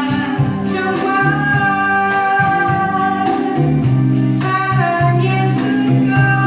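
A slow ballad with a long sung note held over guitar and a bass line.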